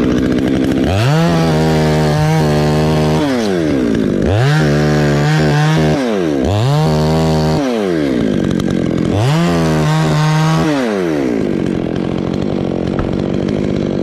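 Petrol chainsaw revving from idle to full throttle four times, each burst held for one to two seconds and then falling back, as it cuts into a tree limb; it then settles back to idle.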